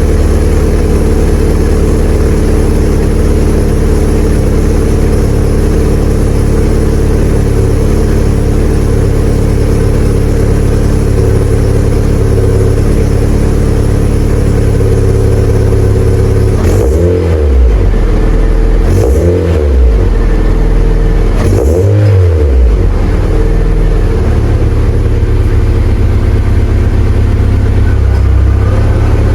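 Car exhaust through a repacked Tanabe Hyper Medallion muffler, idling steadily, then revved three times in quick succession about two-thirds of the way through before settling back to idle.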